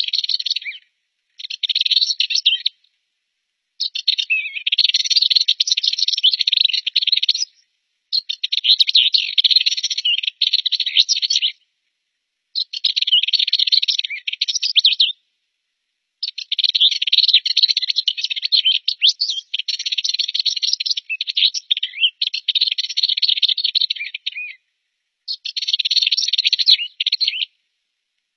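Rüppell's warbler singing: repeated phrases, each a fast stream of high notes lasting a second or two up to several seconds, with short pauses between them.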